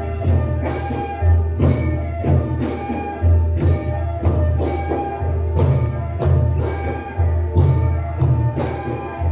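Bodo folk music: a bamboo flute melody over a deep, pulsing drum, with a bright strike about every 0.8 seconds keeping the beat.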